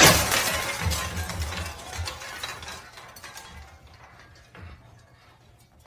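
A sudden crash, followed by rattling and clinking that dies away over a few seconds.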